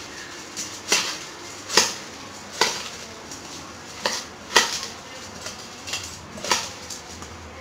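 A spoon clinking and scraping against a stainless steel bowl while puffed rice mixed with chopped vegetables and peanuts is tossed, with about eight or nine irregular metallic knocks, roughly one a second.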